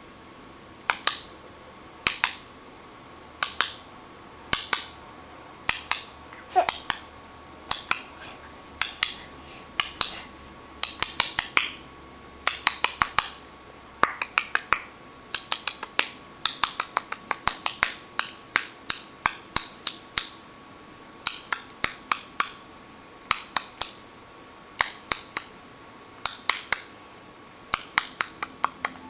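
A baby sucking his finger: wet sucking clicks and smacks in quick little clusters of two to four, repeating about once a second.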